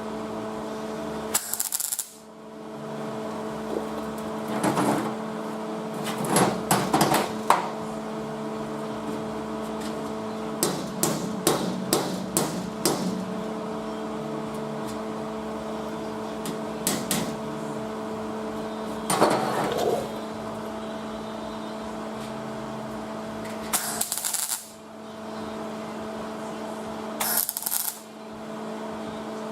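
Three short bursts of welding on sheet-metal car body panels (tack welds): one near the start and two near the end, each a brief crackling hiss. Between them come metal taps, clicks and clanks from working the panels, over a steady electrical hum.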